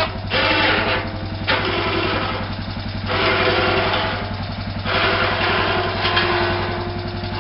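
ATV engine idling steadily, with a brighter, higher noise over it that swells and fades every second or two.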